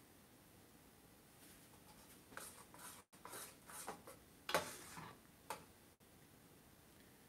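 Metal spoon scraping and knocking against a stainless-steel saucepan as thick soup is scooped out: a handful of short scrapes and clinks in the middle few seconds, the loudest about four and a half seconds in.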